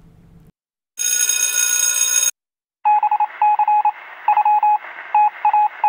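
Electronic sound effects: a bright, steady synthetic tone for about a second, then after a short gap rapid electronic beeping at one pitch, in quick clusters of three or four over a light hiss.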